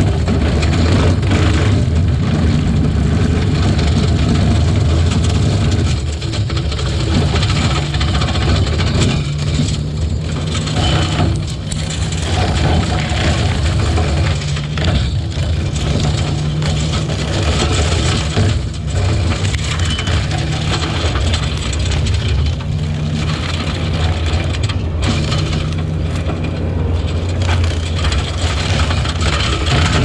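A vehicle engine runs steadily under load while branches and brush crack and snap in irregular bursts.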